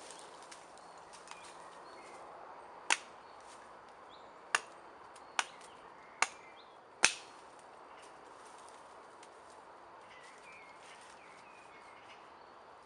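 Five sharp cracks at uneven intervals of roughly a second, the last one the loudest, over a steady woodland hiss with faint bird chirps.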